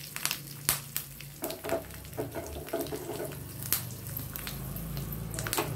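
Mustard seeds, urad dal and curry leaves frying in hot oil in a small steel kadai: a sizzle broken by many scattered sharp pops and crackles as the seeds splutter, over a steady low hum.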